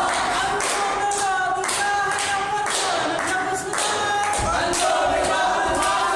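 Qawwali: a group of men singing together in chorus, over steady rhythmic hand-clapping about twice a second.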